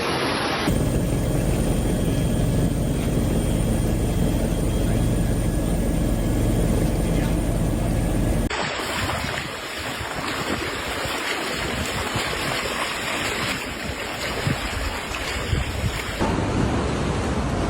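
Floodwater rushing and churning, with wind noise on the microphone, across several cut-together clips. In the first clip a steady low hum with even tones sits under the water; about halfway through it gives way to a brighter, hissing rush.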